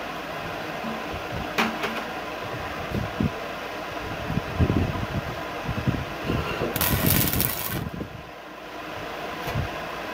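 A steady hum with a click and several dull thumps as the steel tube is handled, then, about seven seconds in, a stick-welding arc crackles for about a second as a tack weld is struck at the base of the upright square tube.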